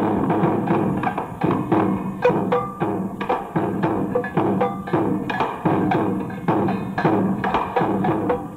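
Percussion-led music: a quick, uneven run of sharp strikes with a few short pitched notes among them, sounding dull and thin in the highs.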